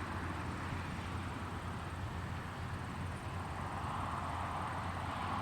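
Steady distant engine noise across an airfield, a low rumble under a hiss that swells slightly about four seconds in.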